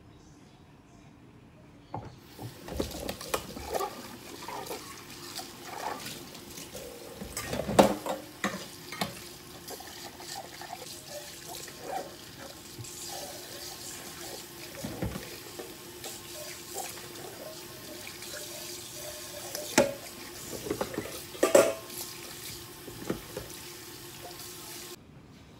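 Kitchen tap running into a stainless steel sink while plates are washed and rinsed by hand, with scattered clinks and knocks of dishes against the sink, the loudest around eight seconds in and twice near the end. The water starts about two seconds in and stops shortly before the end.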